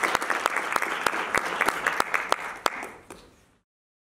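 Audience applauding, a dense patter of many hands clapping that fades out about three seconds in.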